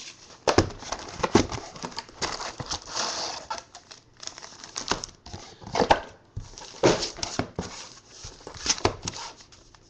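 Sealed football trading-card packs being handled and dealt onto a table: wrappers rustling and packs tapping down in irregular knocks.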